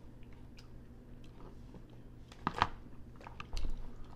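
Blue crab shell being cracked and picked apart while eating, with crunching and chewing: scattered sharp cracks, the loudest about two and a half seconds in, then a few more near the end.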